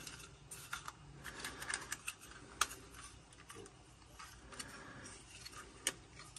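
Plastic parts of a Transformers Galaxy Shuttle toy clicking and rubbing as they are handled and fitted together: a run of faint light clicks, with two sharper clicks about two and a half seconds in and near the end.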